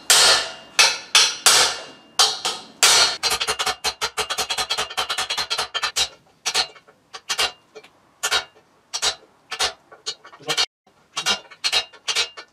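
Hammer blows on a steel bearing tool, driving a new sealed bearing into the bottom bracket shell of a BMX frame: sharp metallic knocks with a short ring. They come about half a second apart at first, then as a quick run of lighter taps, then as scattered taps with pauses.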